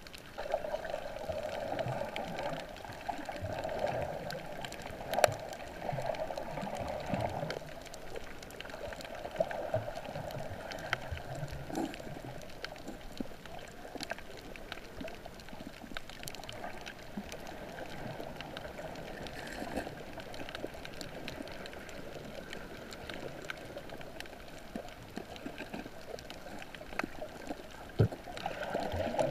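Water heard through a camera held underwater: a steady muffled sloshing and gurgling that swells and fades, with scattered faint clicks and one sharp click about five seconds in.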